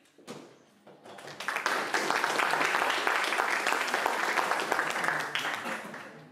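Audience applauding: a short knock, then clapping that builds about a second in, holds steady for several seconds and dies away near the end.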